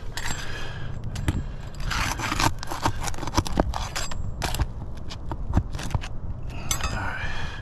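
Metal pry tool scraping and clicking under asphalt roof shingles while prying roofing nails loose, in an irregular run of short scrapes and sharp clicks.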